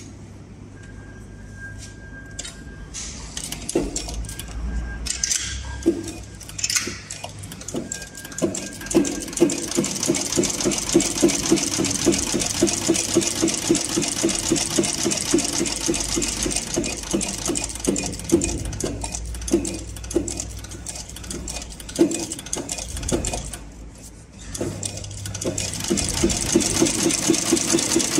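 CowBoy CB4500 heavy-duty cylinder-arm leather sewing machine, driven by a servomotor, stitching thick leather. It starts with slow, separate stitch knocks, then runs at a fast, even mechanical clatter, stops briefly near the end and picks up again.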